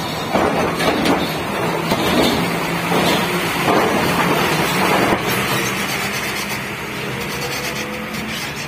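Cargo trucks driving onto a ferry over its steel ramp and grating deck: a diesel engine running with repeated clanks and rattles of the metal plates during the first five seconds or so. After that the clanks die away and a steady engine hum takes over as the next truck comes up the ramp.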